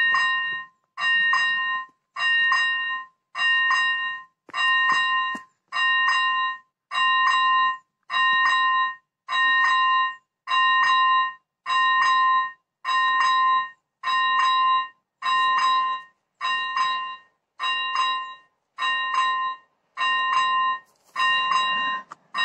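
Electronic level-crossing bell (Elektronický 01) of an AŽD 97 crossing ringing a steady, evenly spaced ding, a little under one a second. Each ding is a clear chime that holds for most of the gap. It is the crossing's warning that a train is approaching.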